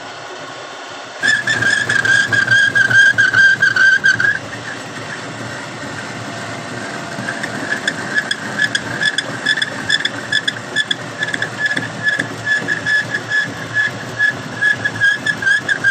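High-pitched whine of a workshop power tool. It sounds steadily for about three seconds from about a second in, drops away, then comes back from about halfway through, rising and falling about twice a second.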